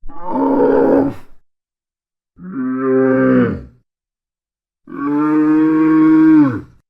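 Dromedary camel calling three times in low, drawn-out bellows. The first is rougher, and the last is the longest, about two seconds. Each call drops in pitch as it ends.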